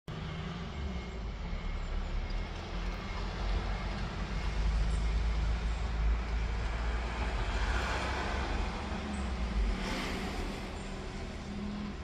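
A motor vehicle's engine running with a low rumble and a steady low hum, with a swell of road noise about eight seconds in. The rumble drops away shortly before the end.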